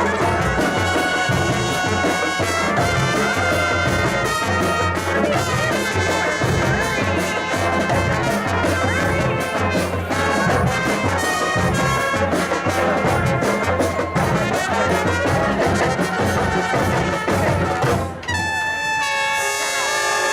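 A brass marching band playing, with trumpets and trombones over a steady drum beat. Near the end the beat stops and the horns hold long notes.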